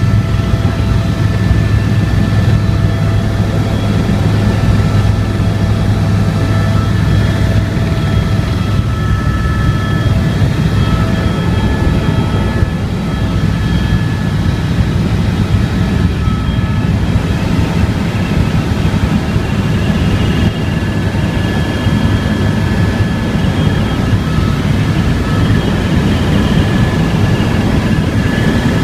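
Helicopter in flight heard from inside the cabin: loud, steady engine and rotor noise with a low hum and several steady high-pitched whining tones.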